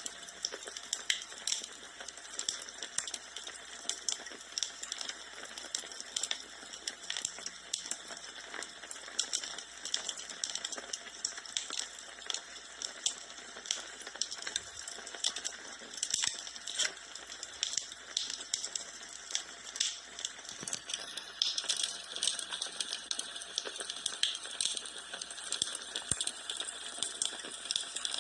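Wood fire in a fireplace crackling: a steady hiss with many small irregular pops and snaps, a little livelier from about three-quarters of the way in.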